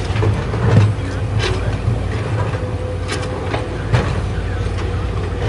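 Diesel engine of heavy construction machinery running steadily, with a few sharp metallic knocks.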